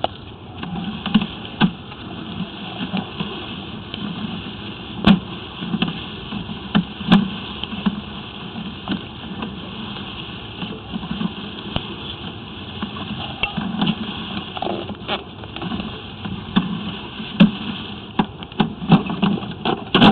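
Sewer-scope push cable being pulled back out of the line and onto its reel, with irregular knocks and clicks from the camera head and cable over a steady hiss.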